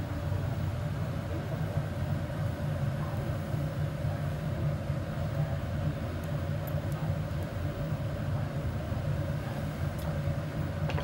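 Steady low rumble of a glass hot shop's gas-fired furnace and glory hole burners and their blowers, with a faint steady hum above it.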